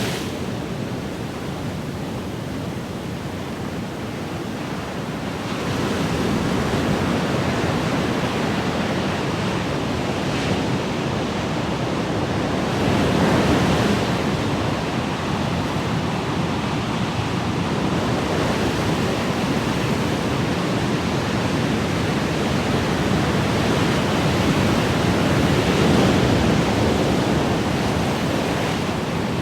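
Ocean surf: a continuous wash of breaking waves that swells several times, most strongly about halfway through and near the end.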